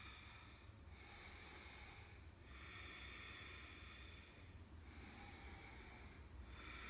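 A woman breathing slowly and audibly while holding a yoga pose. The breaths in and out are faint and even, each lasting about one and a half to two seconds.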